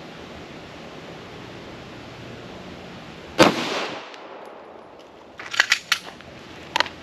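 A single 9mm pistol shot from a Glock 19, sharp and loud with a short echoing tail, about three and a half seconds in: the last round left in the chamber. A few quieter sharp clicks follow about two seconds later, and one more near the end.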